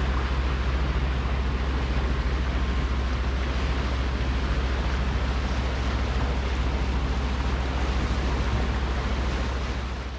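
Westsail 32 sailboat's inboard diesel engine running steadily while motoring, a low, even drone, with a hiss of wind and water over it.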